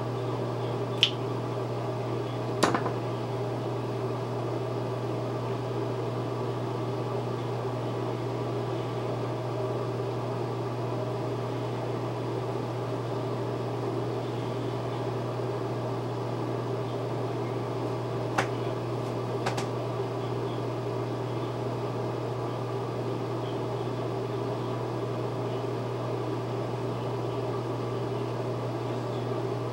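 Steady low mechanical hum, with four light clicks: two in the first few seconds and two a little past the middle.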